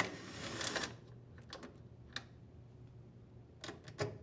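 Cordless impact driver backing out one of the screws that hold a GE washer's mode shifter: a sharp click, then just under a second of rapid rattling hammering. After that come a few light clicks near the middle and near the end.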